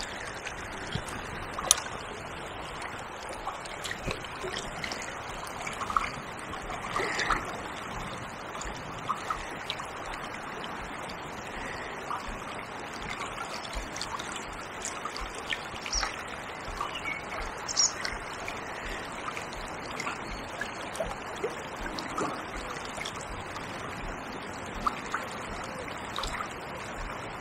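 Fast, shallow river flowing steadily: an even rush of water, with small splashes and ticks scattered through it.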